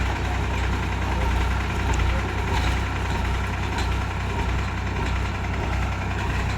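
New Holland tractor's diesel engine running steadily.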